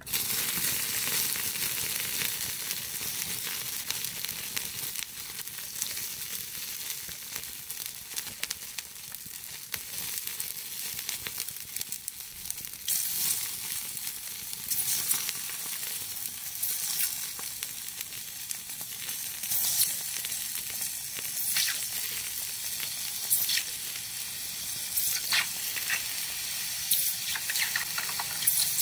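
A red-hot metal ball sizzling and crackling against melting plastic toy aircraft: a steady high hiss starting suddenly, with scattered sharp pops that come more often from about halfway through.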